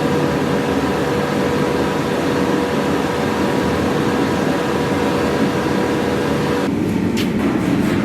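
A forge and its blower running: a steady rushing noise with a constant hum. About seven seconds in, the hum stops and a sharp metallic clink rings out, like hammer on steel.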